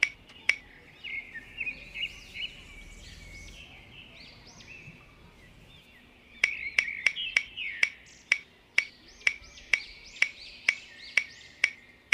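Small birds chirping. About halfway through, a run of sharp clicks starts: quick at first, then settling to about two a second.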